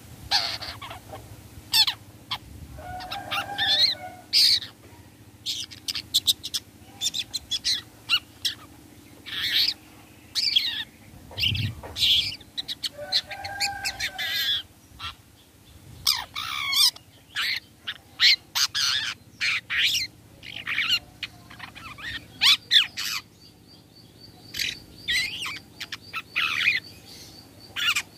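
Long-tailed shrike (cendet) calling: a rapid, irregular series of short, sharp notes, broken twice by a longer, lower warbled phrase.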